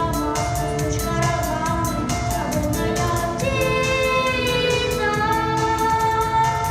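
A child singing long held notes, some with vibrato, over a pop backing track with a steady beat.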